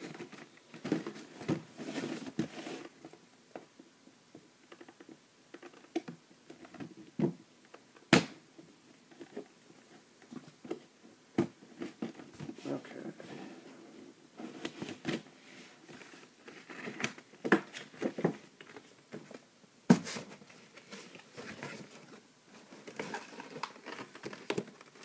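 Cardboard toy box being handled and opened with a knife: scattered rustling, crinkling and scraping, with many short sharp clicks and knocks, the loudest about eight seconds in and about twenty seconds in.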